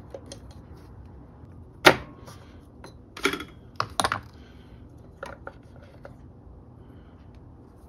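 A handful of sharp plastic-and-metal clicks and knocks as the old camshaft position sensor is worked out of its bore in a Jeep Wrangler engine by hand, the sharpest about two seconds in.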